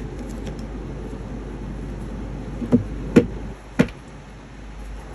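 Steady low background hum with three sharp taps in the second half, each about half a second apart.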